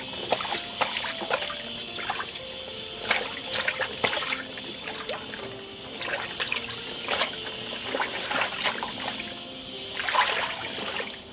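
Hands sloshing soaked kelp sheets around in a metal basin of water, with repeated splashes and dripping as the sheets are lifted out and dropped back. Soft background music plays underneath.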